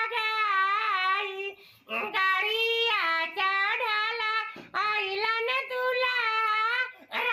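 A man singing a folk wedding song in a high, woman-like voice, unaccompanied. He holds long wavering notes, with short breaks for breath about two seconds in, near five seconds and near the end.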